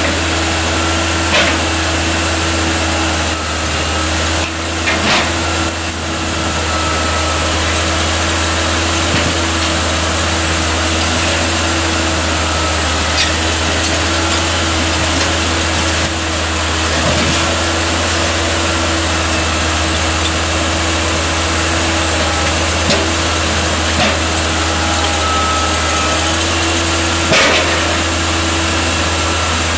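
Manitowoc 14000 crawler crane's diesel engine running steadily close by, with a constant low drone and a steady hum, broken by a few sharp knocks.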